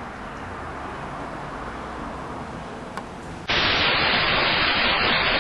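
Faint steady background hiss, then about three and a half seconds in a sudden loud burst of white-noise static cuts in and holds steady.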